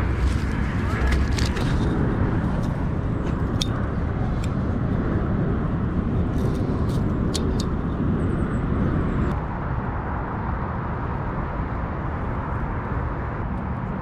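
Steady low outdoor rumble, with scattered clicks and rustles of the fish, net and tape measure being handled on the grass during the first half. The rumble eases slightly about nine seconds in.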